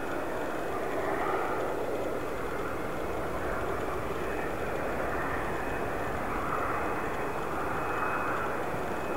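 Jet engines of a twin-engine airliner heard from behind as it moves away down the runway: a steady jet noise that swells and eases slightly every few seconds.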